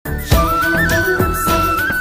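Background music: an Indian film-style tune with a flute-like melody over a steady drum beat.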